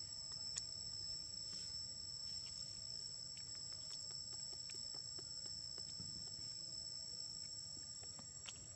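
Steady high-pitched chorus of insects, two even whining tones held throughout, with a few faint ticks over a low rumble.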